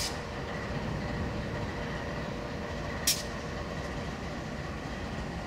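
Steady low rumble of a diesel-hauled train, with two sharp clicks about three seconds apart.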